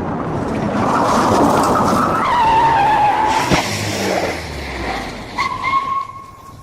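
Car tyres skidding and squealing, a long screech that slides down in pitch, with a sharp impact about halfway through and a second, steadier squeal near the end.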